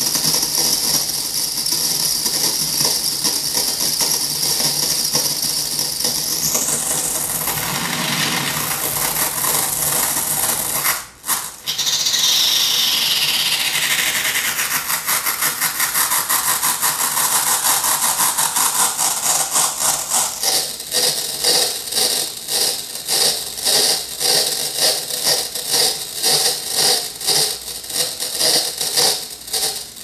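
Circuit-bent Sounds of Nature flashlight toy playing distorted electronic sound: a hiss with a high whistling tone that rises, cuts out briefly, then slides steadily down in pitch as the pitch bend is worked. Later the sound breaks into an even, rapid pulsing.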